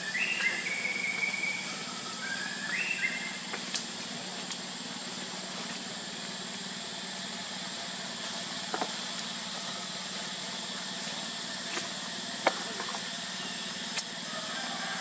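Baby pig-tailed macaque giving two short high-pitched squealing calls in the first three seconds, over a steady outdoor background hum; a few faint clicks follow later.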